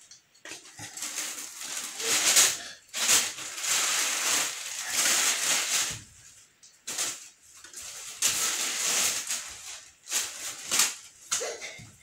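A person's long breathy huffs and sniffs of air, about half a dozen, as a cotton bud tickles inside a nostril; no sneeze comes.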